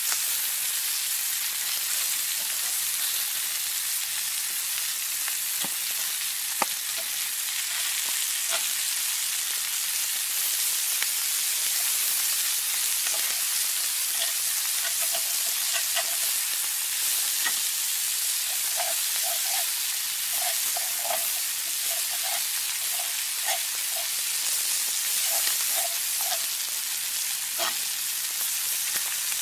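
Italian sausages, green peppers and onions frying in oil in a cast iron skillet over a wood fire: steady sizzling with scattered pops.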